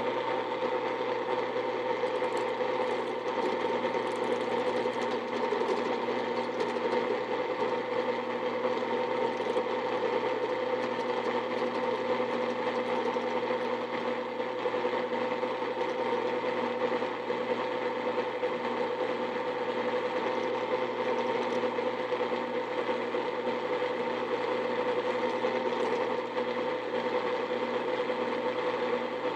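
Drill press running with a steady, unchanging hum as a number 32 drill bit bores into a blind dowel pin, at a spindle speed too slow for so small a bit.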